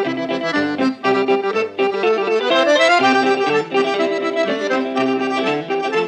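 Accordion music: a traditional-style tune of held notes over a repeating bass, with a short rising glide about halfway through.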